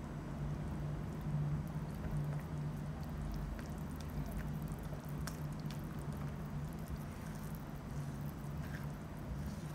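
Spatula stirring tapioca starch into a wet batter in a plastic bowl: soft squishing and scraping with scattered light ticks, over a steady low hum.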